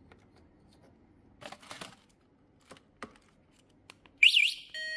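A few rustles and clicks, then the motorbike's anti-theft alarm answers its key-fob remote: a short, loud, fast-warbling siren chirp about four seconds in, followed by a run of electronic beeps stepping between pitches.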